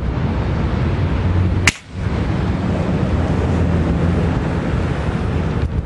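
Steady wind buffeting the microphone, with a low rumble. One sharp crack about two seconds in.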